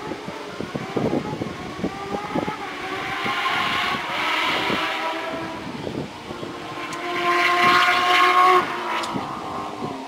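Porsche 997 GT3 rally car's flat-six engine revving hard at a distance, its pitch climbing through the gears. Near the end it holds a loud, high steady note for about a second and a half, then cuts off sharply.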